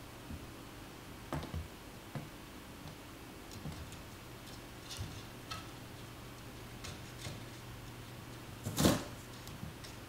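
Scattered light knocks and scrapes of a kitten's claws and paws on a wooden chair back and a cardboard box, with one louder thump a little before the end, over a faint steady low hum.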